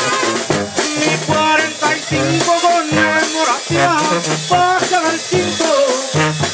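Live tamborazo banda playing: trumpets carry a wavering melody over a sousaphone bass line and a steady drum beat.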